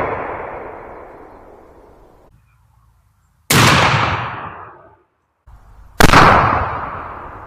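Two 12-gauge shotgun shots from Federal Hi-Bird loads of 1¼ oz number 5 shot, about two and a half seconds apart. Each is a sharp blast followed by a long rolling echo. The echo of an earlier shot dies away over the first two seconds.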